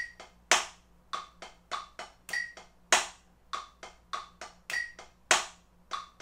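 Drumsticks striking a rubber practice pad in a sixteenth-note accent exercise with double strokes: soft taps, with a much louder accented stroke about every two and a half seconds. A metronome clicks steadily underneath, its higher click marking every fourth beat.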